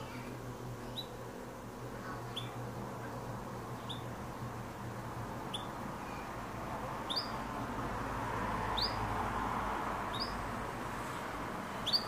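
Domestic canary giving short single chirps, each a quick upward sweep, about one every second and a half, louder in the second half.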